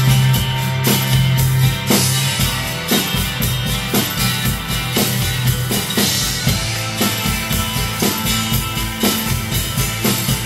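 Acoustic drum kit played along to a recorded rock song: kick, snare and cymbal hits keep a steady beat over the song's sustained instruments.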